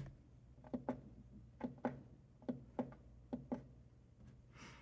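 Four pairs of sharp clicks, about one pair a second, from a Coofly S1000 portable power station being switched on and shutting itself off at once, over a low steady hum. The unit won't stay on for longer than half a second.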